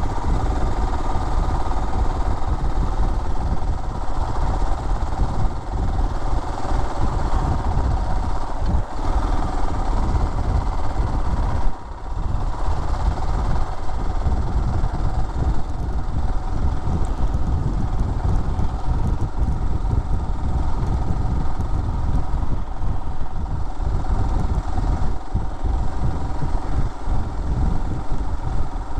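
Motorcycle engine running steadily while riding along, with a brief drop in level about twelve seconds in.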